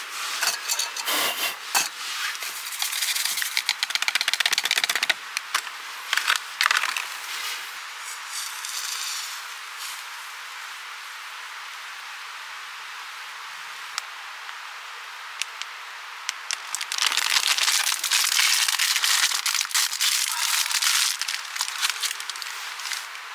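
Crinkling and sharp clicks as a hot-chocolate packet is handled over a metal camping mug. A quiet steady hiss follows, then about five seconds of dense hissing and crackling as hot water is poured from a small kettle into the mug.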